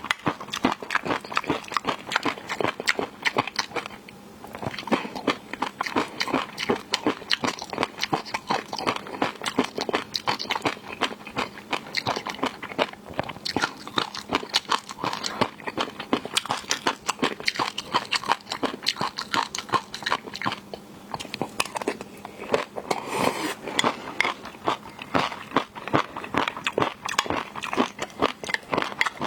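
Close-miked eating of seafood: steady biting and chewing with dense, rapid crunches and wet clicks, easing off briefly about four seconds in and again around twenty-one seconds.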